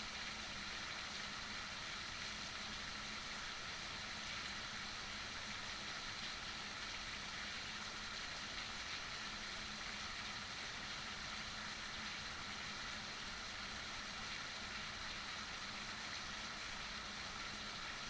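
Heavy rain falling steadily, an even hiss that never lets up.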